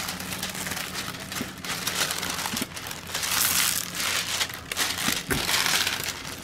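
Clear plastic protective film on a cloth diamond painting canvas crinkling as hands press and smooth the canvas flat. The rustling comes in several louder swells.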